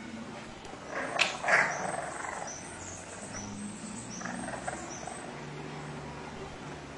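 English bulldog puppies growling and grunting as they wrestle, with two short, sharp yips about a second in.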